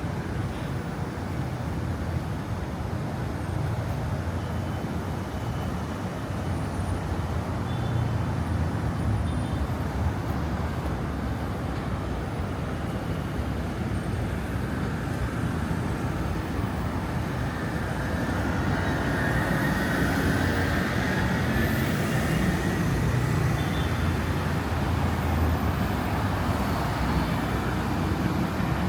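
City street traffic: a steady rumble of passing vehicles that grows somewhat louder about two-thirds of the way through.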